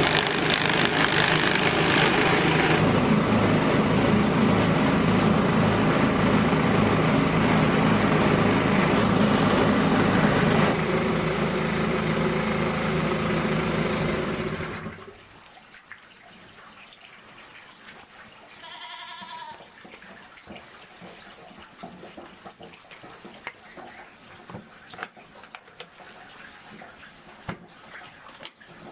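A motor running steadily, cutting off abruptly about halfway through. After that it is much quieter, with scattered small clicks and one brief pitched call.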